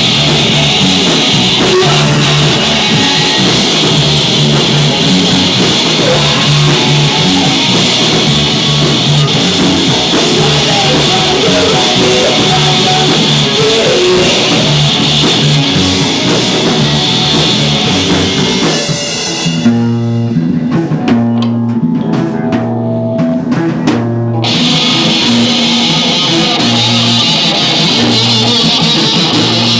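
Live rock band playing: electric guitar, bass and drum kit. About two-thirds through, the guitar and cymbals drop out for about five seconds, leaving a repeating bass line and drum hits. Then the full band comes back in.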